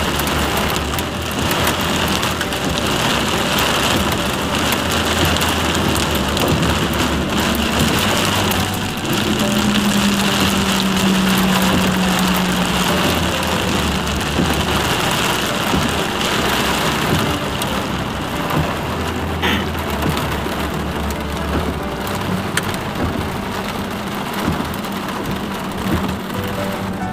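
Heavy rain pelting a moving car, heard from inside the cabin, with the car's engine and tyres on the flooded road underneath. A steady low hum rises for a few seconds about ten seconds in.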